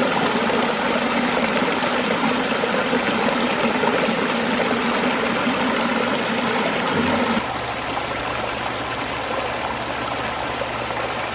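Pondless waterfall running: water splashing and rushing down a stone cascade. About seven seconds in, the sound shifts to a slightly quieter, steadier rush with a low steady hum beneath it.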